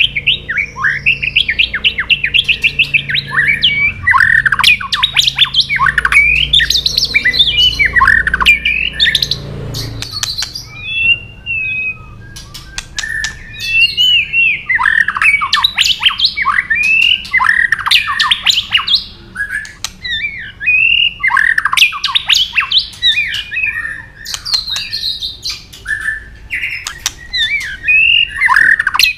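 White-rumped shama singing a fast, varied song of whistled phrases with sharp clicking notes mixed in, in bursts broken by short pauses.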